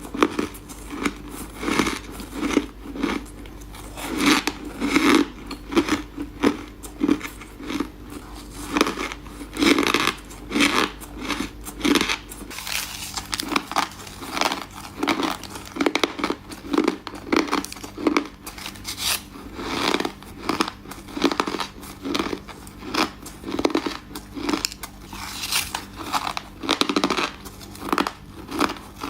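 A person biting and chewing ice, a steady run of crisp crunches about one or two a second, close to the microphone.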